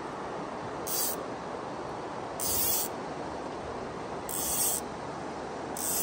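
Fly line pulled off a fly reel in four short tugs, each a brief high buzzing zip, over the steady rush of river water.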